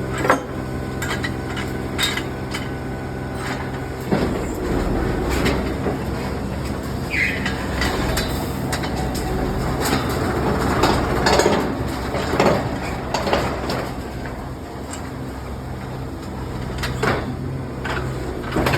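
An engine running steadily, turning rougher and noisier about four seconds in, with frequent sharp knocks and clinks throughout.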